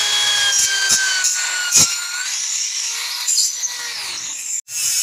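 Electric drill running, spinning a wooden knife handle held in its chuck as a makeshift lathe while the wood is shaped. The motor's whine sags a little in pitch under load over a scraping noise, with a few sharp knocks in the first two seconds, and the sound breaks off for an instant near the end.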